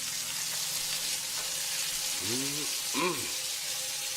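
Breaded chicken breasts frying in hot oil: a steady, even sizzle.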